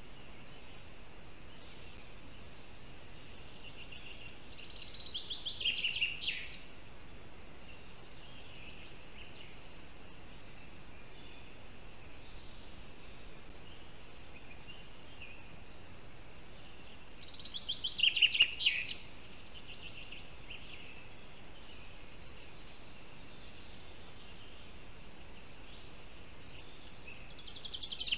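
A songbird sings a short, quick phrase of notes sweeping downward three times, about twelve seconds apart, the last near the end, over a steady background hiss.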